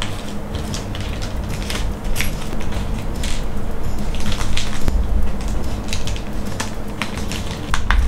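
Close-up clicks, taps and crackles from handling a small silicone resin mold and a tool, over steady background music.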